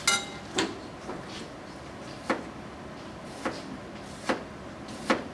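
Light knocks and clinks of a kitchen utensil and containers being handled at a food-prep table, about six separate knocks spread a second or so apart, the first with a short ring.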